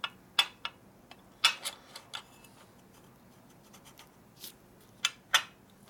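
Sharp metal clicks and clinks of steel shift forks and the shift rail being moved by hand in a Borg Warner T5 transmission's shift cover. There are several in the first two seconds, then a few more near the end.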